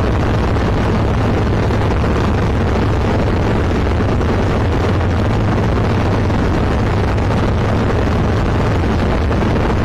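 Steady drone of a Zenith CH701 light aircraft's engine and propeller in level flight, with air rushing past, heard from inside the cockpit.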